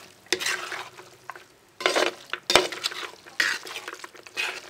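Metal spatula stirring thick beef pickle in a large metal pot: wet scraping strokes against the pot about once a second, with one sharp clink of metal on metal about halfway through.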